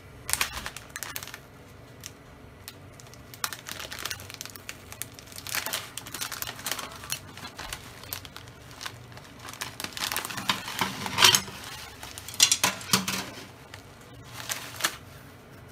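Plastic bag of panko breadcrumbs crinkling in irregular bursts as it is handled and tipped to shake crumbs out onto pork belly slices.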